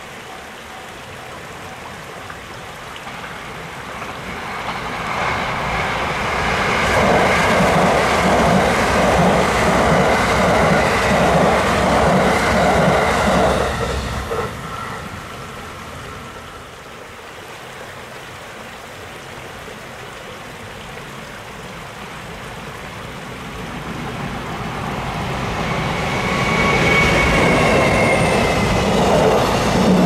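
Train noise on the line. A rumble builds and holds loud for several seconds, then falls away suddenly about halfway through. Near the end it builds again as a container freight train rolls past.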